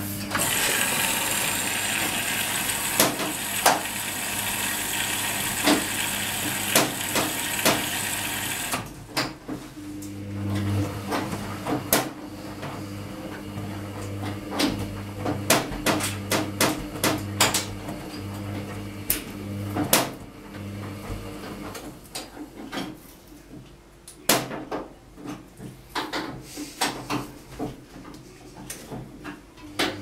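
Hoover HTC247 top-loading washing machine early in a 60°C cottons wash. A loud steady rush of water filling the drum cuts off about nine seconds in. Then the drum turns with a low hum and many scattered knocks and clicks.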